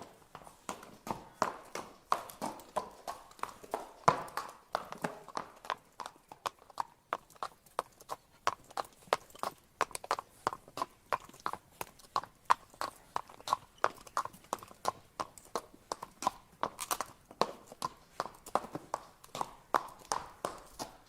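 Horse walking, its hooves clip-clopping in a steady, even rhythm of about three to four hoofbeats a second.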